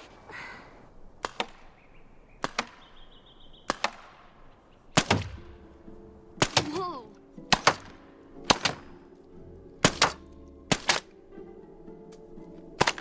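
Paintball gun firing shot after shot, a sharp pop about once a second, some in quick pairs. A film score with sustained tones comes in about five seconds in.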